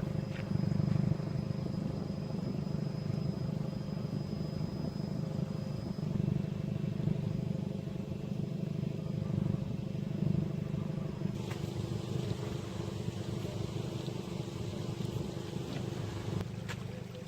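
A motor vehicle's engine running steadily with a low, even hum. A hiss comes up over it about eleven seconds in.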